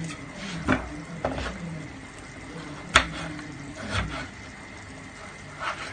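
Irregular sharp knocks and clatters of kitchen utensils and cookware being handled, about five in all, the loudest about halfway through.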